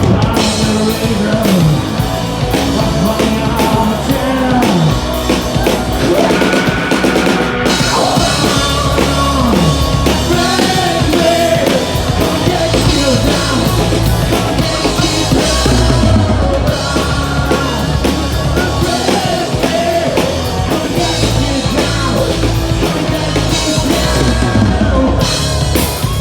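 Live hard rock band playing: drum kit with bass drum, electric guitars and bass guitar, loud and continuous.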